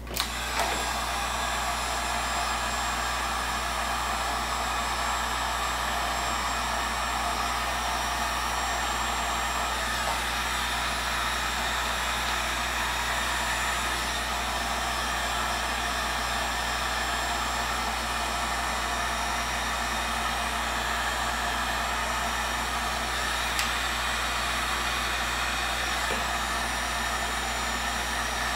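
Electric heat gun running steadily, blowing hot air to shrink heat-shrink tubing over soldered sensor wire joints.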